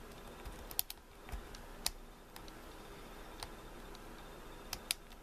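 Faint, irregular metallic clicks and ticks from a lock pick and tension wrench working the pins inside an older Corbin pin tumbler lock during single-pin picking, with two quick pairs of clicks about a second in and near the end.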